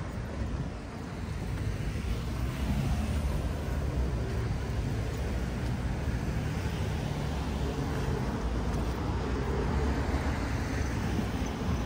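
Street traffic: motor vehicles running and passing, a steady low rumble with engine hum.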